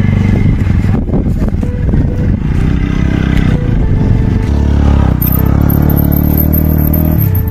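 Motorcycle engine running as the heavily loaded bike rides slowly past; its note drops about four and a half seconds in as it goes by.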